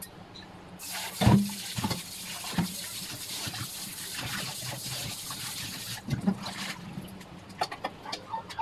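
Kitchen tap running into a stainless steel bowl while raw chicken wings are rinsed by hand, with a few knocks, the loudest about a second in. The water shuts off about six seconds in, leaving light clinks and handling.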